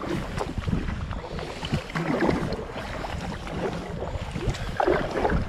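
Double-bladed kayak paddles dipping and splashing in river water as two people paddle an inflatable kayak, with wind rumbling on the microphone.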